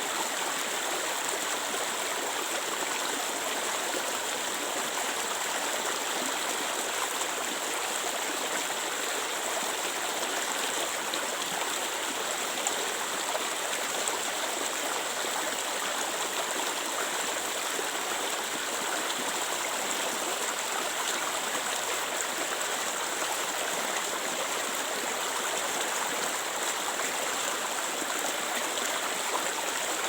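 Clear water flowing steadily over rocks in a stream, a constant splashing rush with no breaks.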